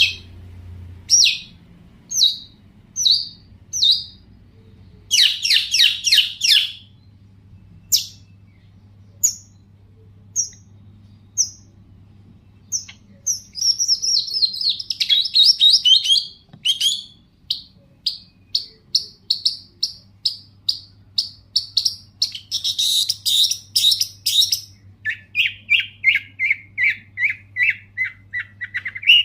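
Long-tailed shrike (cendet) singing a varied, mimicry-filled song of sharp single notes and fast chattering runs. Near the end it changes to a quick series of lower repeated notes.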